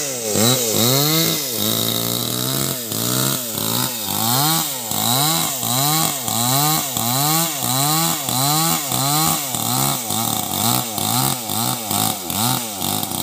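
Two-stroke chainsaw cutting into a log. Its engine pitch rises and falls over and over, about one and a half times a second, as the chain bites and frees in the wood.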